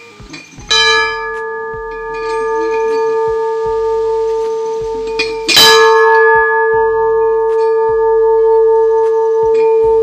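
Large hanging temple bell struck twice by its clapper, about five seconds apart, each strike ringing on in a long, steady, slightly wavering tone.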